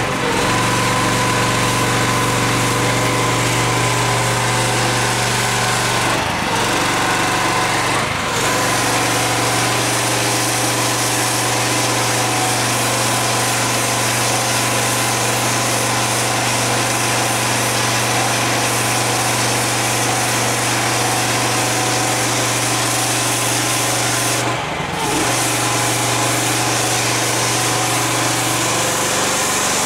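High-pressure washer running steadily: the pump's motor hum under the hiss of the water jet blasting paving slabs. The sound briefly dips three times.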